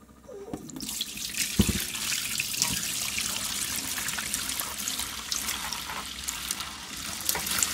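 Soapy water pouring from a kettle into a stainless steel sink, splashing steadily over the drain as it foams, with a single thump about a second and a half in.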